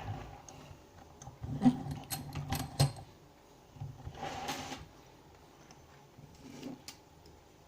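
Metal clicks and clinks of a freshly picked dimple lock and its pick tools being handled, with a short scraping rasp about four seconds in and a few more clicks near the end.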